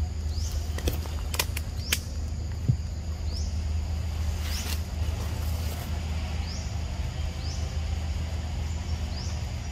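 Forest-floor ambience: short, high, rising chirps repeat roughly once a second over a steady low hum. A few sharp clicks sound in the first three seconds, and a brief rustle comes about halfway through.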